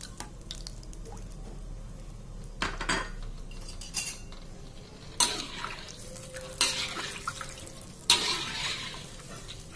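Wooden spatula stirring coconut milk in a pan, with knocks and scrapes against the pan about every second or so; the loudest comes near the end, followed by a longer scrape.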